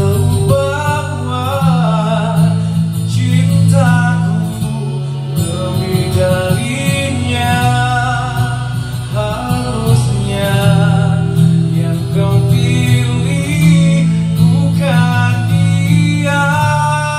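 Music: a man singing into a microphone over a guitar accompaniment, holding long notes with vibrato.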